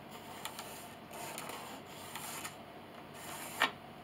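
Pencil scratching along the edge of a wooden board as a line is drawn, followed about three and a half seconds in by a single sharp click.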